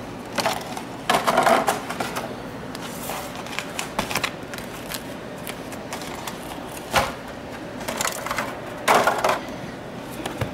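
Intermittent clattering and crinkling of disposable aluminium foil loaf pans and baked cakes being handled on a countertop, in short irregular bursts, the loudest about a second in and again near the end.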